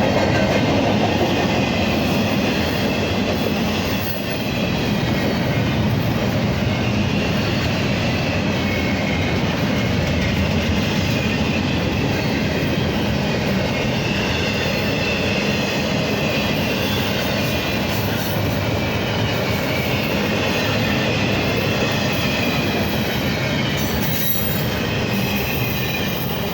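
Cars of a double-stack intermodal freight train rolling past: a steady, loud rumble of steel wheels on rail with faint, wavering wheel squeal.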